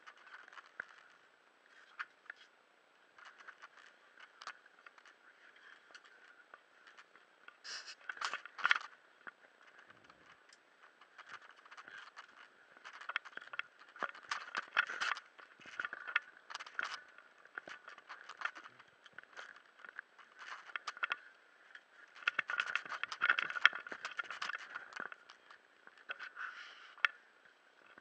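Handling noise from a small camera being moved and bumped against gear: irregular scraping, rattling and clicking, with denser clusters about eight seconds in, in the middle and again a few seconds before the end.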